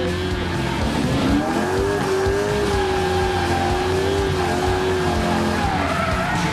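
Nissan Skyline drift car's LS2 V8 held high in the revs, dipping and climbing again about a second in and once more near the end, with tyres squealing as they spin in a smoky drift.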